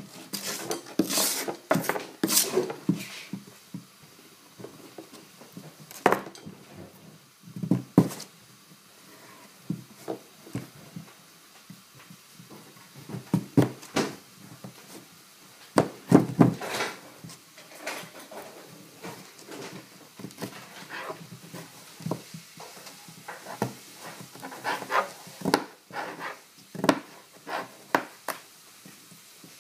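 Chef's knife working a peeled squash on a plastic cutting board: short scraping strokes, knocks of the squash and knife set down on the board, and a run of quick cuts near the end as the squash is sliced into strips.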